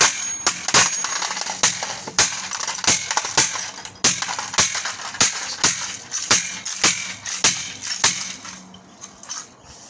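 Hammer repeatedly striking and crushing an old cordless phone's plastic casing, about two sharp blows a second with plastic cracking between them, easing off near the end.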